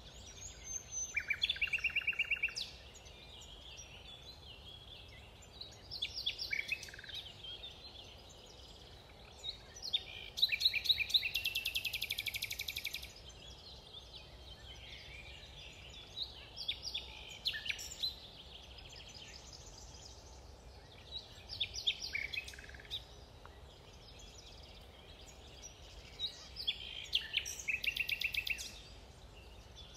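Songbirds singing in woodland: about six short song phrases a few seconds apart, several ending in fast high trills, the longest about three seconds long near the middle, over a steady low background hiss.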